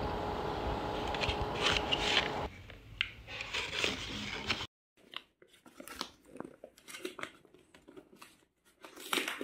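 Cardboard box and paper packaging being handled: crinkling, rustling and small clicks, over a steady hum for the first couple of seconds. About four and a half seconds in the sound cuts off suddenly, then only faint paper rustling and clicks follow.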